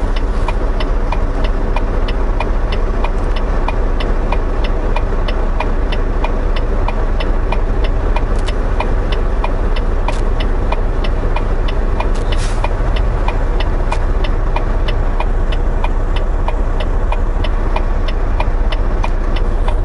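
Semi-truck diesel engine idling, heard inside the cab, with the turn-signal flasher clicking steadily at about two clicks a second while the truck waits to turn.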